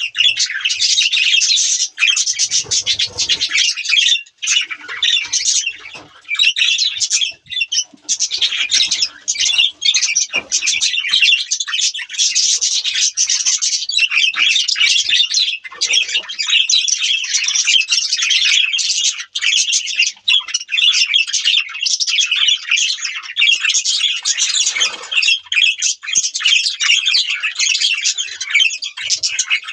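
A flock of budgerigars chattering, a dense, continuous stream of fast high chirps and squawks.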